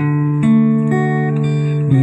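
Acoustic guitar playing through a sound system during a mixer sound check, with a new note or chord about every half second.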